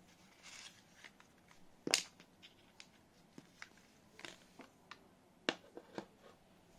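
Handling noise of a pistol-shaped cigarette lighter being drawn from its leather holster: a short rub of leather, then a series of sharp clicks of hard plastic and metal parts, the loudest about two seconds in and two more near the end.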